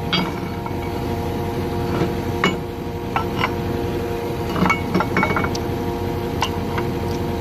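Scattered light metal clinks and taps, a few with brief ringing, as steel parts are fitted to a Caterpillar 933G steering clutch and brake drum assembly during the throw-out yoke refit. A steady mechanical hum at several fixed pitches runs underneath.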